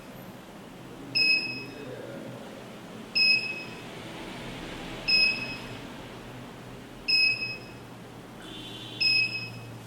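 Burglar alarm keypad beeping: five short, high-pitched beeps about two seconds apart.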